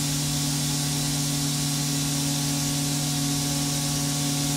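Steady hum with an even hiss over it from a powered-up Haas TM-1P CNC mill standing idle, its cooling fans and electronics running with the spindle stopped.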